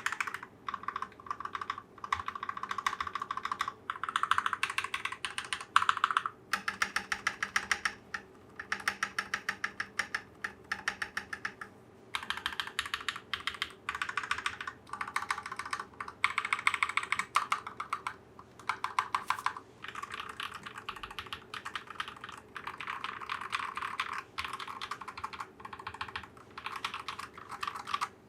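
Typing on a finished budget 65% custom mechanical keyboard with Akko CS Rose Red linear switches: fast runs of keystrokes in bursts of a second or two, separated by short pauses.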